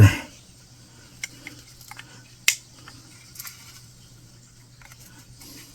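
A few small plastic clicks and taps from an HO-scale locomotive's body shell being handled and pressed onto its chassis, the sharpest about two and a half seconds in. A steady low hum lies underneath.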